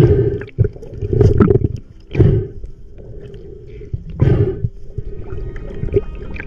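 Muffled surges of water and bubbles around a camera in the sea, five loud surges a second or two apart.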